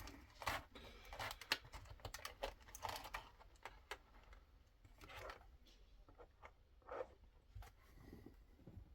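Hands unpacking and handling packaging: irregular small clicks, taps and short rustles of plastic wrapping.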